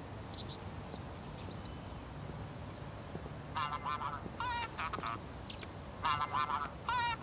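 Mobile phone ringing: a warbling electronic ringtone starts about three and a half seconds in. The same phrase repeats about every two and a half seconds, so it sounds twice.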